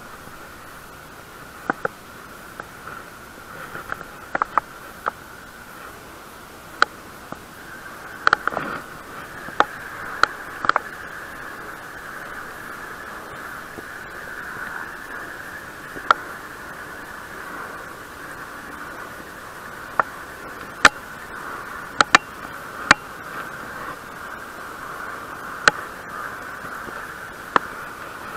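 Scattered sharp clicks and taps, irregularly spaced, over a steady hiss: a spinning reel and fishing rod being handled and worked at a metal railing while a small fish is reeled in.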